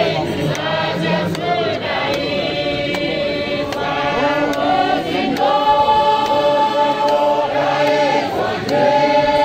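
A large congregation of men and women singing a hymn together, many voices on long held notes that slide between pitches.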